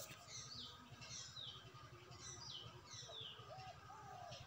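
Faint background birdsong: small birds chirping in a run of short falling chirps, about two a second, with a few lower short calls among them, over a faint low hum.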